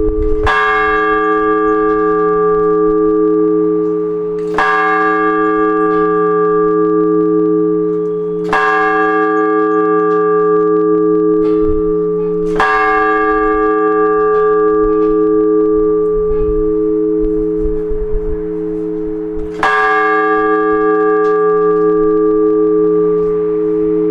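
A large church bell rung for blagovest: slow, measured single strokes of one bell, about four seconds apart with a longer pause before the fifth. Each stroke's long hum rings on with a slow pulsing beat between strokes.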